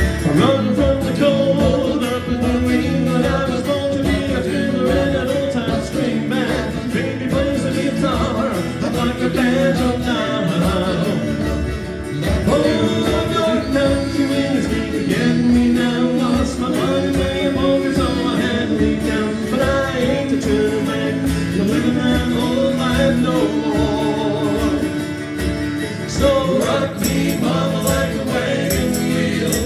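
Several male voices singing a song in close harmony, backed by strummed acoustic guitars and a hand drum keeping a steady beat.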